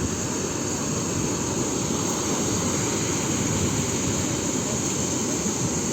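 Sea waves breaking on the shore: a steady, unbroken rushing noise.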